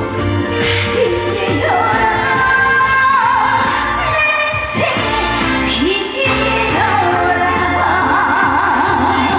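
A woman singing a Korean trot song with a wavering vibrato over a live backing band.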